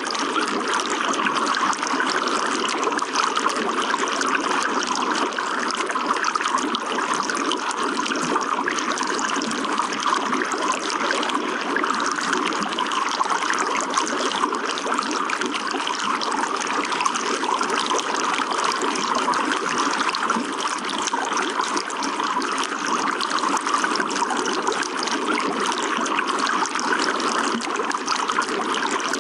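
Running water trickling and splashing steadily, with no change in strength.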